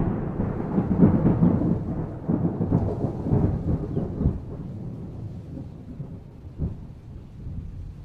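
Thunder rumbling, rolling and strongest for the first four seconds or so, then dying away, with a brief swell near the end.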